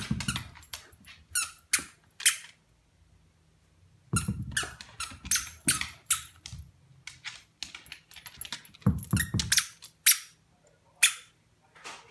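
Plush turkey-leg dog toy squeaking as a corgi chomps on it: quick runs of short squeaks in three bursts, with quiet pauses between.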